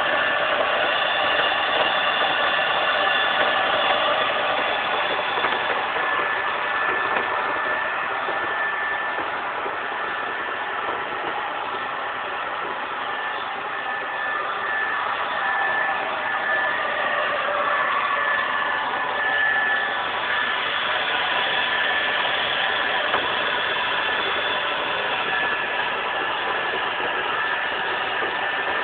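Carpet cleaning machine running: a steady motor whir with a thin high whine over it, dipping slightly in level midway and picking up again.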